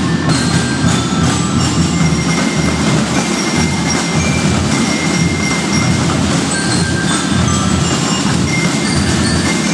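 A school drum and lyre corps playing: snare and bass drums beating continuously, with short ringing bell-lyre notes on top.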